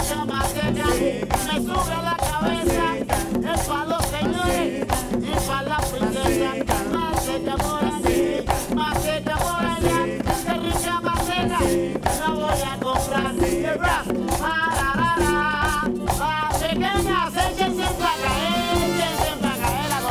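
Live merengue band playing at a fast tempo: a rapid scraping güira and tambora drum drive the rhythm over bass guitar, congas and drum kit, with saxophone and trumpet lines rising out of the mix in the last few seconds.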